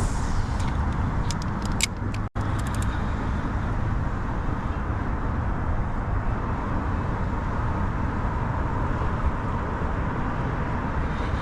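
Steady low rumbling noise with a few light clicks about two seconds in and a momentary dropout just after them.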